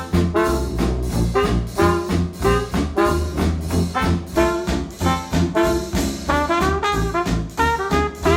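Retro swing-jazz band playing, with trombone and trumpet leading over a steady, bouncing bass beat, played back through hi-fi bookshelf speakers.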